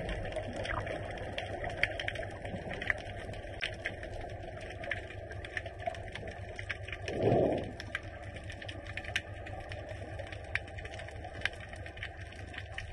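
Underwater sound picked up by a submerged camera: a steady low rumble of water noise scattered with many sharp clicks and crackles. A louder low whoosh lasting about half a second comes about seven seconds in.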